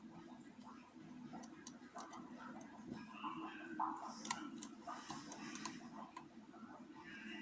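Faint, irregular metallic clicks and light scratching of a lock pick working the pin stack inside a small Papaiz oval pin-tumbler lock, held under tension, with a steady low hum behind.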